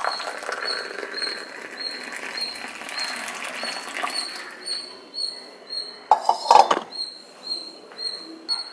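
Frothy coffee poured in a steady stream from a steel pan into a ceramic mug, the splashing pour fading out about five seconds in. A short high chirp repeats about twice a second throughout, and a couple of sharp knocks come about six seconds in.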